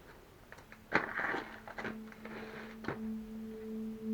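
A few light clicks and a short rustle of handling tackle packaging about a second in. After it a steady held musical note, a low tone with its octave above, fades in: the start of background music.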